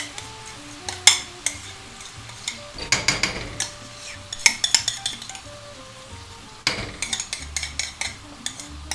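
A metal utensil clinking and scraping against a ceramic bowl and a frying pan as ricotta is spooned onto sautéing zucchini, in several clusters of sharp clicks, over a faint steady sizzle from the pan.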